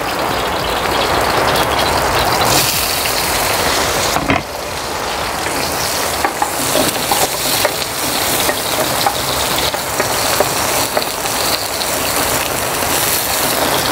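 Sliced red onion frying in hot oil in a pan, sizzling steadily with many small crackles, while a spatula stirs it.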